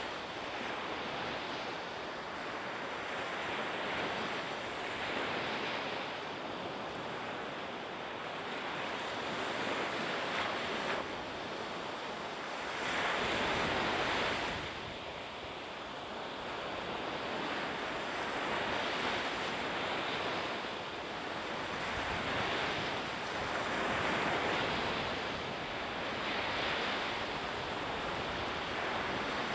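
Wind and sea water rushing steadily, swelling and easing every few seconds, with a louder swell about thirteen seconds in.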